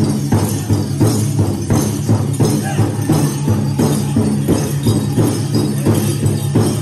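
Powwow drum group singing over a steady, even beat on the big drum, with jingling from the dancers' regalia.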